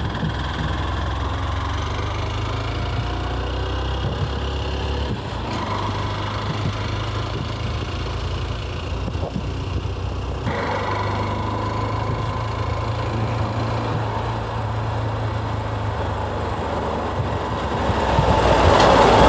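A two-wheeler's small engine runs steadily under way, with wind and road noise over it.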